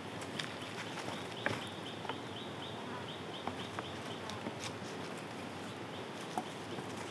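Scattered sharp clicks and rustles of a fresh vine being pulled and wrapped around wooden stakes, the loudest click about a second and a half in. Behind it, a steady forest hiss and a high chirp repeating about three times a second, pausing for a few seconds mid-way.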